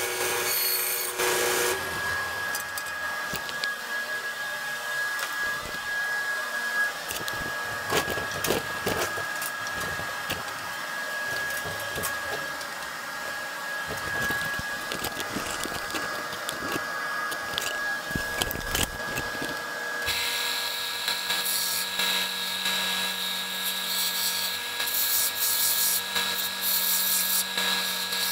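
Bandsaw running and cutting through a thick block of UHMW plastic, with scraping and knocks as the piece is fed through. About two-thirds of the way in, the sound changes abruptly to a different, steadier power-tool sound.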